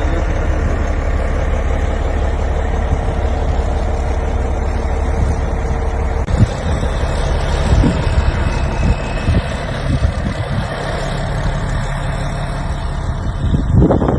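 Heavy diesel construction machine's engine running steadily. From about six seconds in the sound changes and several knocks or thuds come through, with a louder burst near the end.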